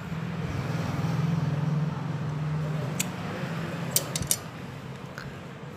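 Cloth being handled while a hole is made in it, with a few sharp clicks about three and four seconds in. A low steady hum runs under the first half.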